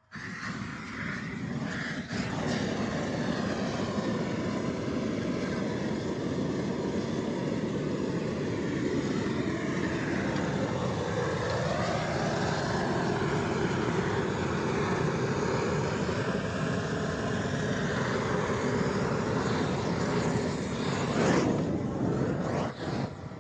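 A gas blowtorch burning with a steady rushing noise. It starts abruptly, and its tone drifts slowly up and down before it cuts off abruptly near the end.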